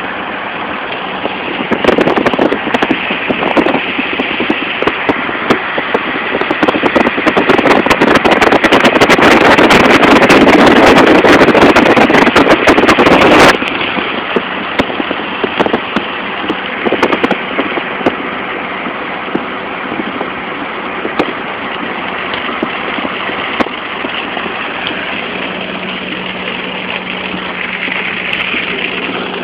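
A vehicle engine running steadily with a low hum. From about two seconds in, a loud rushing, crackling noise covers it and then cuts off suddenly just before the middle.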